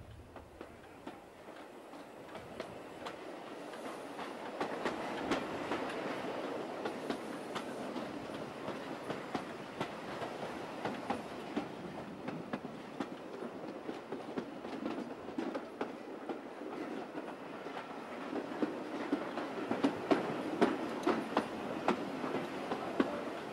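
Steam train running along the line, heard from beside the locomotive: a steady clatter of wheels over the rails with many sharp clicks. It grows louder over the first few seconds, and the clicks come louder and closer together near the end.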